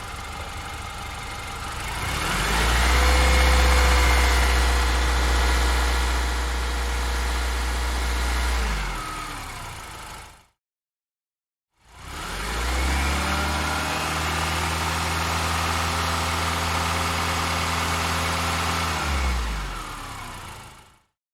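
Two separate recordings of a car engine. Each runs at a low speed, rises to a steady higher speed held for about six seconds, then drops back and fades out, with about a second of silence between the two.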